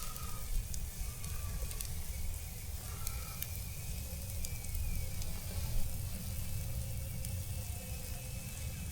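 Chicken wings sizzling on a grill, a steady hiss with scattered sharp pops and crackles, over a low steady rumble.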